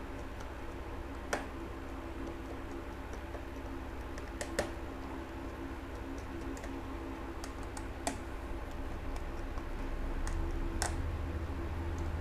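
Scattered small sharp clicks and ticks of a precision screwdriver and tiny screws being taken out of a smartphone's plastic midframe, a few louder than the rest, over a steady low hum.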